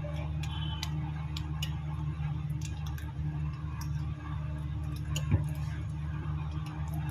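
Light clicks and taps of a smartphone's glass and plastic parts being handled and pressed on a repair bench, with one louder click about five seconds in, over a steady low hum.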